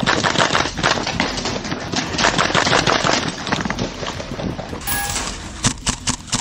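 Airsoft guns firing rapidly, a dense clatter of many shots a second, with BBs hitting the wooden barricades. Near the end come a few separate single shots.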